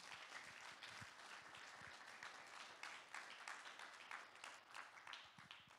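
Congregation applauding, faint, dying away near the end.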